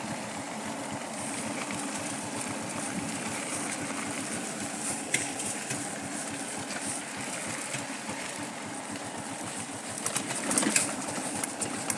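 Motorcycle engine running steadily at low speed while being ridden over a rough dirt road, an even low pulsing hum.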